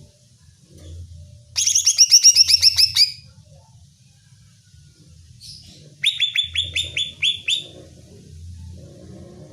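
Greater green leafbird (cucak ijo) song: two quick bursts of rapid, repeated down-slurred chirps, each about a second and a half long, the second about three seconds after the first ends. It is a fired-up song used as a provoking call to make a kept leafbird sing back.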